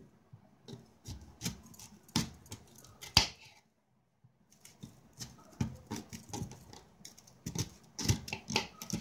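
Kitchen knife slicing a peeled raw kappa (cassava) root into thick rounds. Each cut ends in a sharp knock of the blade on the board, and the knocks come at uneven intervals.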